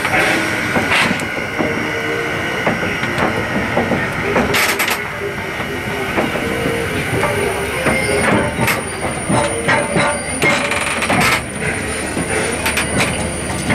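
Hv1 steam locomotive rolling slowly, its driving wheels and coupling rods giving irregular metallic knocks and clicks on the rails. A thin, high steady whine joins about eight seconds in.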